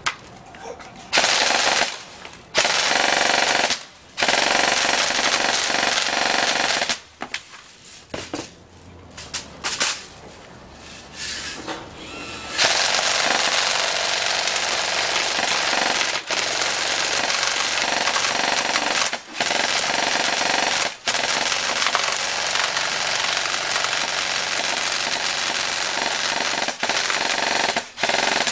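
Echo1 Full Metal M4 airsoft electric gun firing on full auto, its gearbox cycling in a fast rattle. Two bursts of about a second each come first, then a few short bursts, and from roughly halfway through long strings of fire broken only by brief pauses.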